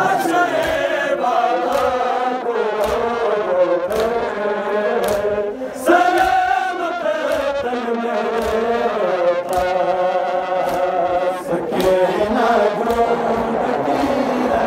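A group of men chanting a noha, a Muharram lament, in chorus, with a sharp beat keeping time under the voices.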